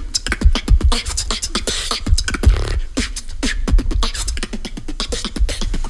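Beatboxing into a handheld microphone: a dense rhythmic stream of sharp clicks and snare-like hits over frequent deep kick-drum thumps.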